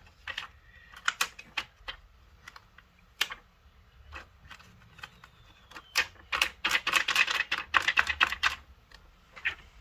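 Small sharp clicks and taps of a phone and its case being handled, scattered at first, then a dense run of quick clicks a little past halfway.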